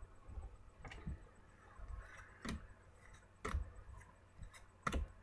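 Trading cards being handled and set down: a few faint, scattered clicks and taps, roughly a second apart.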